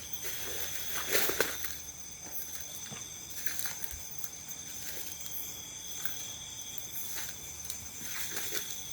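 Night insects keep up a steady high-pitched chirring on two pitches. Over it come scattered crackles and rustles in leaf litter, like footsteps, loudest about a second in.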